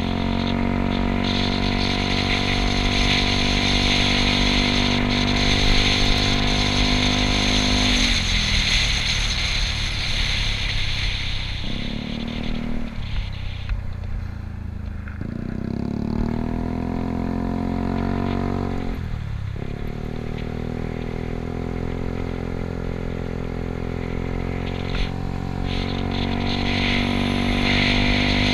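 Yamaha Cygnus scooter's single-cylinder engine running under way, with rushing wind. The throttle eases off about eight seconds in, then the engine pulls back up from about fifteen seconds, with a short dip just before twenty seconds.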